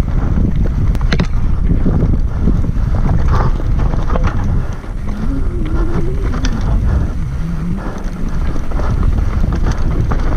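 Wind buffeting the microphone over the steady rumble and rattle of a downhill mountain bike on a rocky dirt trail, with scattered knocks as the wheels strike stones. A wavering tone comes in for a few seconds around the middle.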